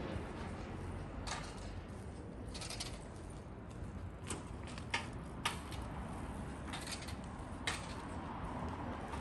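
Quiet residential street ambience: a steady low background rumble with a handful of short, sharp clicks or taps at irregular moments.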